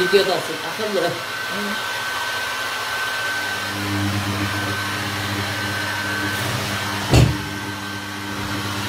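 Hand-held electric hair dryer running steadily, blowing on a dog's coat, its airflow noise carrying a steady motor hum. A sharp knock about seven seconds in.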